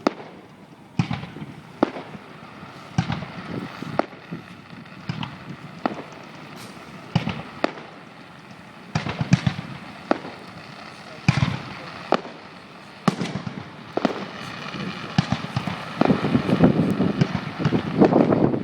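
Fireworks display: shells bursting with sharp bangs about once a second. The bursts thicken into a dense run of crackling and bangs near the end.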